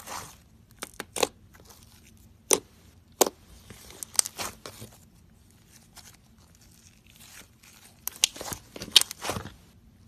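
Slime being squeezed and worked by hand, giving irregular sharp crackles and pops, thickest near the end.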